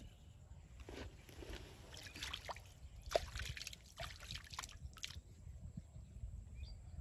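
Shallow canal water sloshing and trickling as a hand dips in and scoops water into a small bowl of fishing bait, with a few short splashes over a few seconds.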